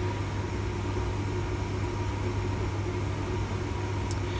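Steady low hum of running equipment over a hiss, with one faint tick about four seconds in.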